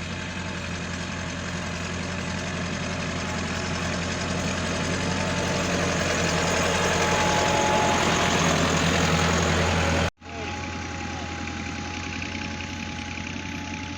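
Tractor engine running steadily, growing louder over about ten seconds; the sound cuts out for an instant and then carries on quieter.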